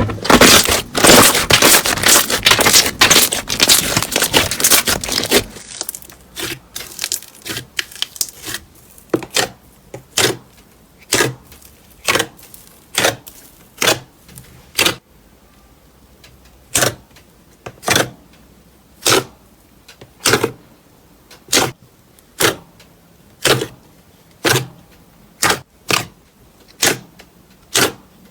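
Crunchy slime being squeezed and pressed by hand, giving a dense run of crackling for about five seconds. After an abrupt change, single crisp crackling pops come about once a second.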